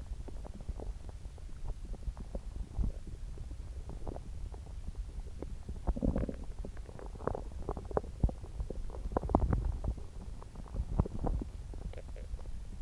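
Upset stomach growling and gurgling: a run of quick, irregular pops and gurgles, busiest from about six to eleven seconds in.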